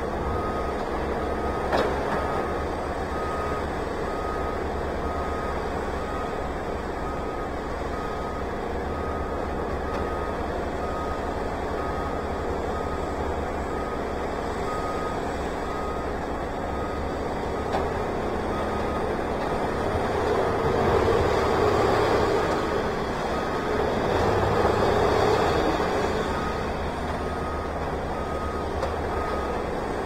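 Backup alarm on heavy equipment beeping steadily over the low rumble of a running engine. The machine noise swells twice in the second half, and there is a single knock about two seconds in.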